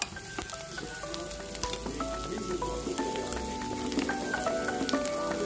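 Diced onion, garlic and bell pepper sizzling in a frying pan while a wooden spatula stirs them, with scattered crackles. Background music with a melody of held notes plays over it.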